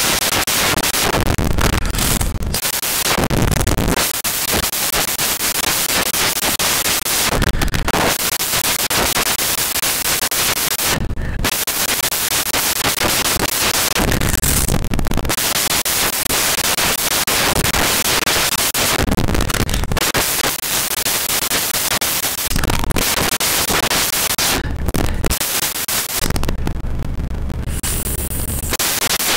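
Loud, dense static-like hiss covering the whole range, briefly thinning now and then.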